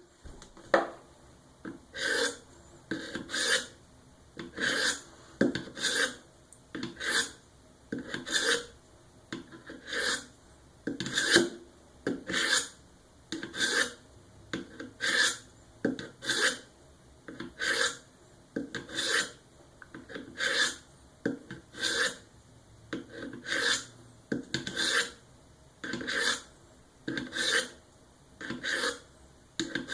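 A steel knife blade being stroked across the ceramic hone of a Work Sharp guided sharpening system: short, even rasping strokes, about one every second or so, refining the edge after the coarse diamond.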